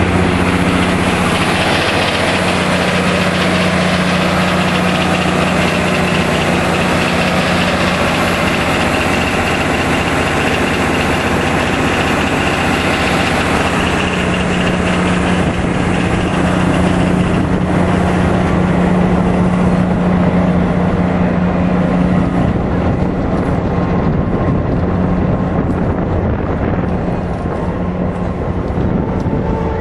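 A machine running steadily with an even, low drone, a little duller near the end.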